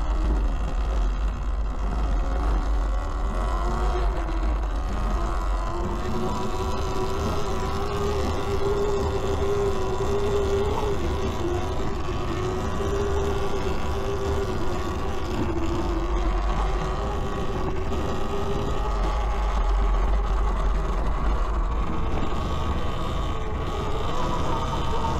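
Eride Pro SS 72-volt electric dirt bike under way: the motor's whine wavers a little in pitch with speed, strongest around the middle, over a steady rush of riding noise. A deep wind rumble on the microphone comes and goes.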